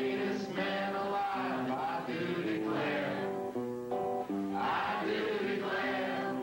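A man singing into a microphone while playing guitar, the guitar picking a line of notes under his voice.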